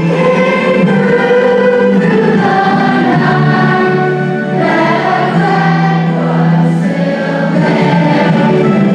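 A choir of many voices singing a song together in long held notes.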